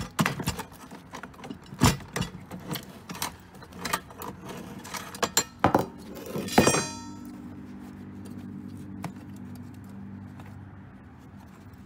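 Metal clinking and rattling as the inside of an opened payphone is handled, with many sharp clicks and jangles. The loudest is a single ringing metallic clink about six and a half seconds in, after which only a steady low hum remains.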